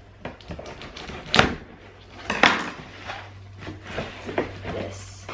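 Cardboard packaging being handled and opened: scraping and rustling of cardboard flaps with two sharp knocks, about one and a half and two and a half seconds in, as the inner product box is pulled out of the outer carton.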